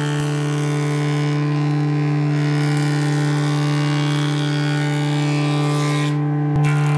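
Jointer running, its cutterhead planing an oak board fed along the fence: a steady machine hum under the noise of the cut. A single sharp click comes near the end.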